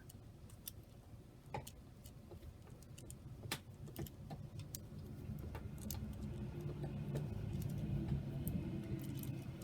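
Light, irregular clicks of the world's smallest Rubik's Cube being turned slowly by hand. A low hum rises in the background over the second half.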